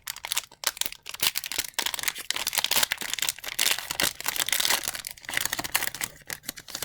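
A hockey card pack's foil wrapper crinkling and tearing as it is opened by hand: a dense run of crackles that thins out near the end.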